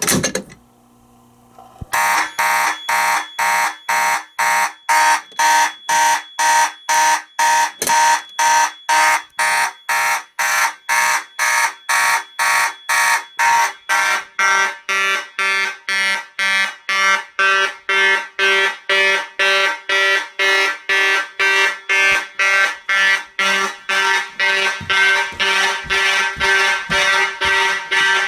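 A fire alarm pull station is pulled with a click, and about two seconds later the Fire-Lite MS-5024 panel's horns, an Edwards 892-2B horn and a Simplex horn-light, start sounding together in march-time code, pulsing about twice a second (120 beats per minute). The mix of horn tones shifts about halfway through.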